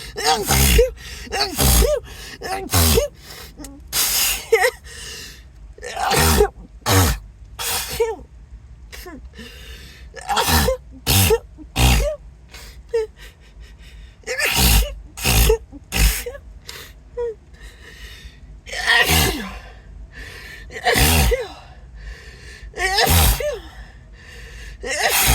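A person's sneezing fit: a long series of sharp sneezes with gasping breaths between them. In the first half they come in quick runs of two or three. Later they come singly, about two seconds apart.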